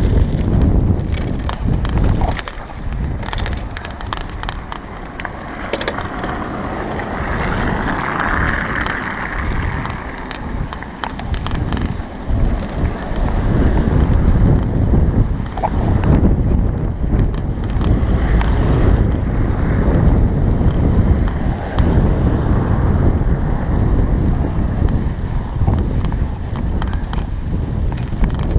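Wind buffeting a GoPro's microphone while riding a bicycle through fresh snow, a steady rumble that swells and eases, with a brighter hiss for a couple of seconds about eight seconds in.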